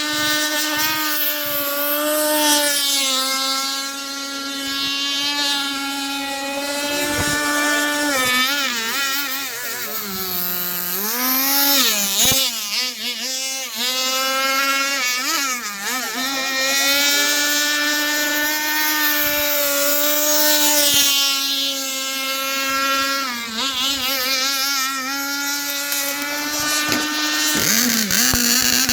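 Small grass-cutter engine driving a homemade remote-controlled boat, running with a steady high pitch. The pitch drops and climbs back several times, between about eight and sixteen seconds in and again near the end, as the throttle is eased off and opened again.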